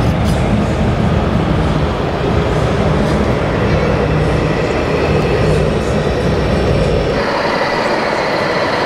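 RC model truck's sound module playing a deep diesel-engine rumble through its small speaker as the truck drives slowly, over hall background noise. The engine rumble stops abruptly about seven seconds in, leaving the hall noise.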